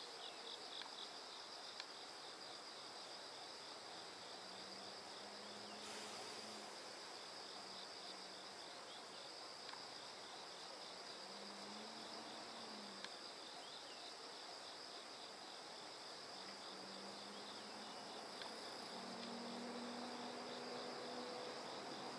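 Insects chirping in a steady chorus of rapid, even pulses, with a high steady trill above it. A faint low hum comes and goes from about four seconds in.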